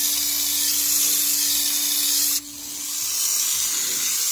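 A steady, high-pitched hiss that drops away sharply about two and a half seconds in, then builds back up, over a faint low hum that stops about a second later.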